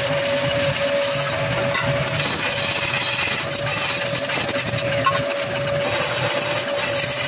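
Belt-driven spinning lathe running while a hand-held tool rubs against the face of the spinning iron pan blank. It makes a steady rough scraping rasp over a constant whine.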